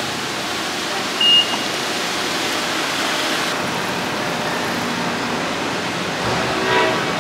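Steady rushing background noise of a station concourse, with one short high electronic beep about a second in from a fare gate's contactless card reader.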